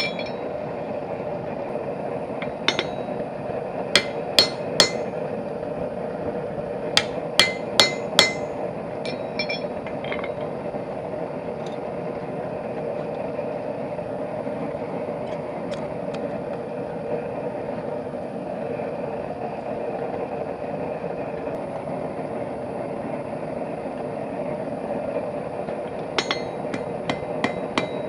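Blacksmith's hammer striking hot steel bar stock on an anvil while rounding over the end of a forged hinge strap: sharp ringing blows in quick groups of three or four during the first ten seconds, a long stretch without blows, then more strikes near the end. A steady roar runs underneath.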